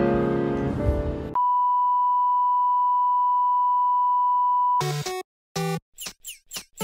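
Soft background music cuts off about a second in and gives way to a single steady censor bleep lasting about three and a half seconds. The bleep stops abruptly and a jingle of short, clipped notes with quick falling chirps begins.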